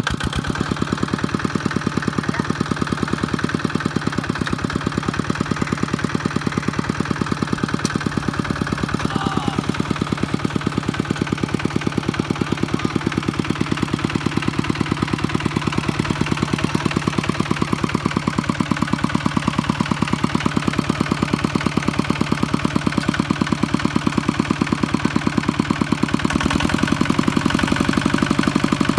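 Kubota walk-behind tractor's single-cylinder diesel engine idling with a steady, fast thumping beat. About 26 seconds in it gets a little louder and its note deepens.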